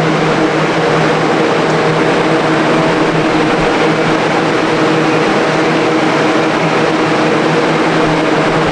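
Dehumidifiers and fans drying out a water-damaged house after a burst pipe, running together as a loud, steady rush of air over a constant motor hum.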